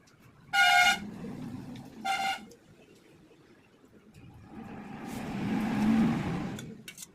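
A vehicle horn honks twice, short and loud, about two seconds apart. Then a vehicle passes by, its sound rising and then fading away.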